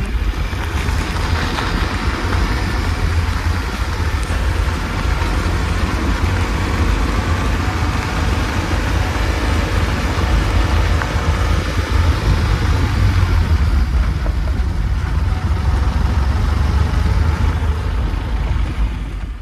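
A car driving along a rough dirt and brick road: steady engine and tyre noise under a heavy low rumble of wind on the microphone held out of the open window.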